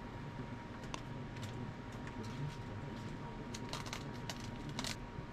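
Light, scattered clicks and short ticks of hands-on work, busiest near the end, over a low steady hum.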